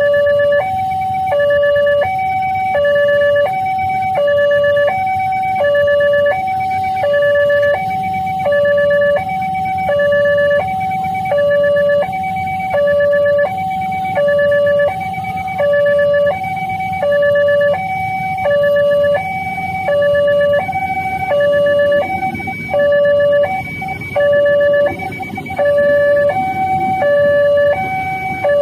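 Railway level-crossing warning alarm sounding its electronic two-tone signal, a high and a low tone alternating about every 0.7 s without pause, warning that a train is coming and the barriers are down. A low rumble runs underneath, stronger from about eight seconds in.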